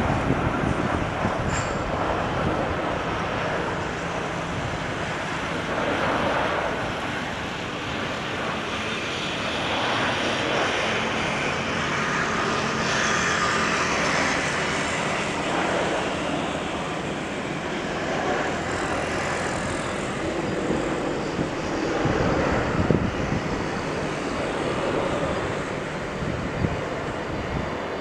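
Boeing 787-10 jet engines on landing approach: a steady jet rumble and rush that swells as the airliner passes, loudest about halfway through, then eases as it touches down and rolls away.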